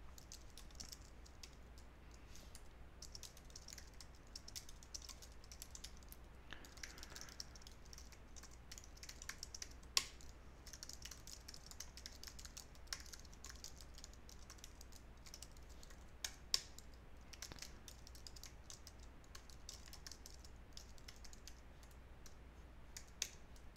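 Faint typing on a computer keyboard: a steady run of quiet key clicks, with a few louder keystrokes about ten seconds in, later on and near the end.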